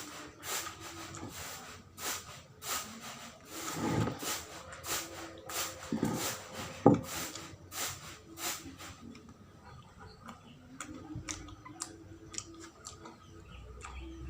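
Close-up rustling and crackling of a wrapped snack being handled and unwrapped, with scattered sharp clicks and one louder click about seven seconds in.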